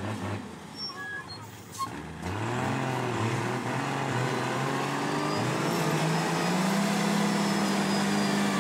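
Heavy truck engine revving hard under load as it works through deep mud; it starts loud about two seconds in, its pitch climbs, climbs again near the middle, then holds high and steady.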